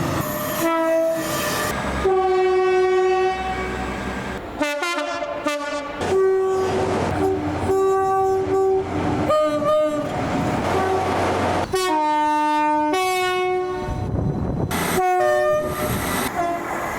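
A series of train horn blasts, several different horns one after another: short toots and longer held multi-note chords, changing abruptly from one horn to the next.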